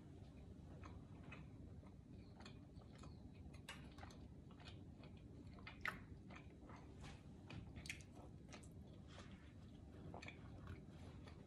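Quiet close-up chewing of food, with faint scattered wet clicks and smacks from the mouth, a little louder about six and eight seconds in.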